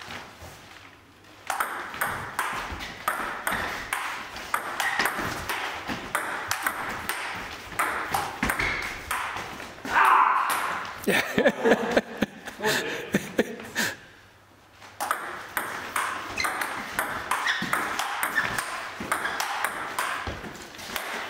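Table tennis rallies: the celluloid-type ball clicks rapidly back and forth between bats and the table, with a short lull about two-thirds of the way through before play resumes.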